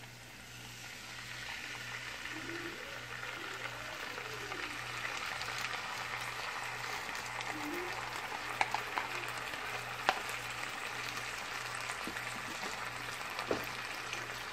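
Pork ribs and barbecue sauce sizzling in a hot frying pan, a steady sizzle that builds over the first couple of seconds. A few sharp taps of a spatula on the pan come in the second half.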